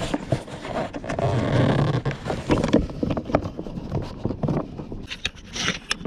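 Handling noise of gloved hands gripping and tugging at a scooter battery wedged tight in its plastic compartment: scattered knocks and clicks with a stretch of rubbing and scraping about a second in.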